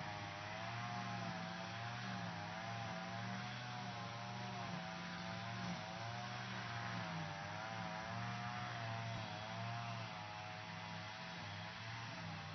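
Lawn mower running steadily: a continuous motor hum whose pitch wavers slightly up and down.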